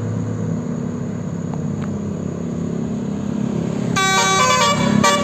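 Bus engine running with a steady low drone. About four seconds in, a Basuri telolet multi-tone horn starts playing a tune of several horn notes at once, stepping quickly from pitch to pitch.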